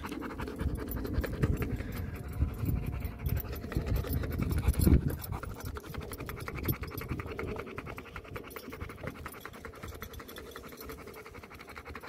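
A phone microphone rubbing and bumping against a dog's short coat while the dog is petted, with a dog panting. The rubbing is loudest about five seconds in and eases off after about six seconds.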